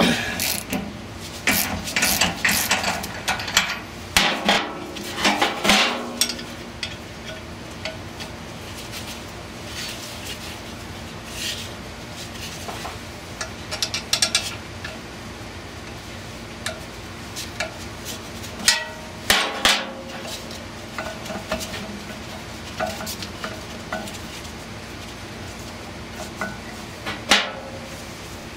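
Steel hand tools clanking and knocking on metal as a ratchet, wrench and puller are worked on a squirrel cage blower wheel hub seized to its motor shaft. A dense run of sharp knocks fills the first few seconds, followed by scattered clanks, with a second cluster around two-thirds of the way through and a single sharp one near the end.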